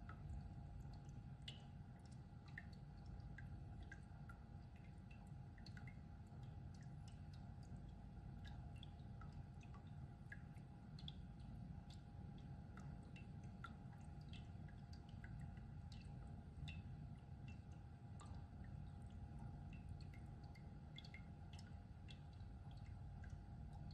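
Carepod Cube Plus humidifier running quietly: a faint steady hum with many small, scattered water drips and pops.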